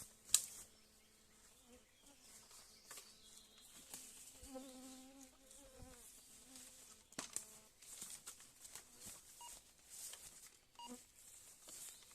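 Faint buzzing of a flying insect passing close, strongest in the middle for about a second and a half, over scattered sharp clicks and a light high hiss.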